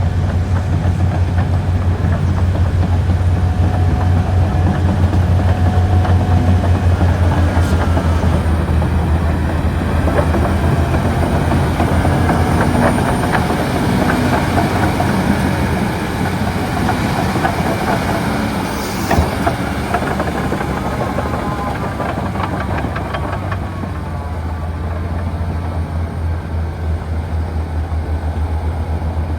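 Komatsu D275AX bulldozer's diesel engine running under load with a steady low drone, its steel tracks clattering as it pushes overburden. A single sharp clank comes about 19 seconds in.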